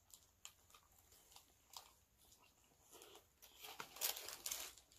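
Faint close-miked chewing of a bite of cheeseburger with a fried cheese patty: scattered soft, wet mouth clicks, growing into louder smacking about four seconds in as a finger is licked.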